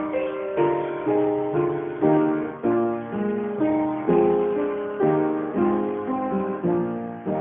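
Piano playing the closing postlude of a church service: a steady succession of chords, about two a second, each dying away before the next is struck.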